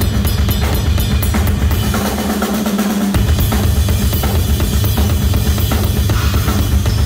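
Live solo on a Ludwig drum kit with twin bass drums: rapid snare and tom strokes over driving bass drums, with cymbals. The bass drums stop briefly about two and a half seconds in, then resume.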